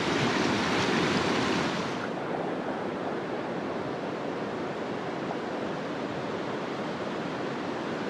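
Mountain stream water rushing over rocks, a steady hiss of flowing water that is louder for the first two seconds and then drops to a softer, even flow.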